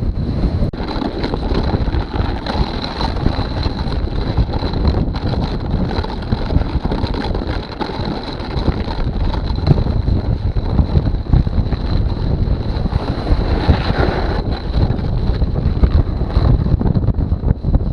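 Strong wind buffeting the microphone of a snowboarder riding fast down an icy slope, a continuous low rumbling rush with the board running over hard ice beneath it. A thin, steady high whine sits above it throughout.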